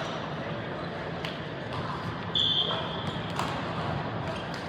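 Indoor gym ambience during a volleyball match: a steady background murmur of voices with a few faint thumps of balls on a hard court. About two and a half seconds in there is a brief high tone.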